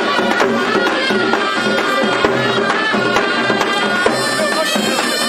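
Traditional folk music: a shrill, reedy wind instrument playing a held, ornamented melody over regular drum beats.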